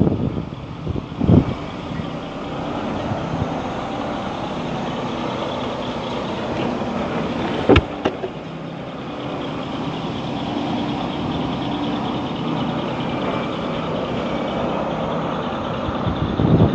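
Vehicle engine idling steadily, with a single sharp knock about eight seconds in.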